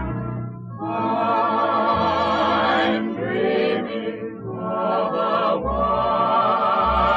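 Background music: a song with a voice holding long notes with vibrato over instrumental accompaniment, in three long phrases.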